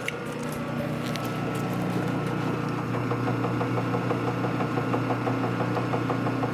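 Metal lathe running, its spindle turning a four-jaw chuck, with a steady hum from the drive and gearing. It grows a little louder over the first few seconds, and a fast regular ticking comes in about halfway through.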